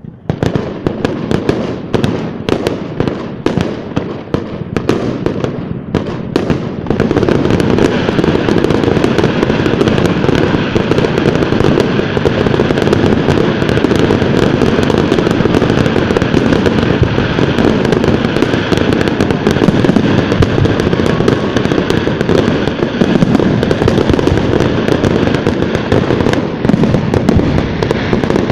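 Fireworks display: a quick series of separate bangs, which about seven seconds in thickens into a dense, continuous barrage of bangs and crackling.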